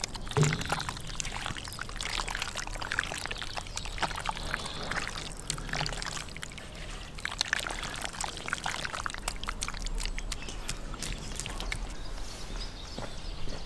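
Wet squelching and squishing of raw marinated wild boar chunks being kneaded and turned by hand in a stainless steel tray, as a run of irregular small squelches.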